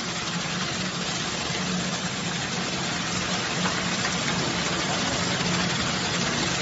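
Stainless-steel vegetable processing machine running, its mesh-belt conveyor carrying cauliflower florets: a steady hum under an even rushing hiss.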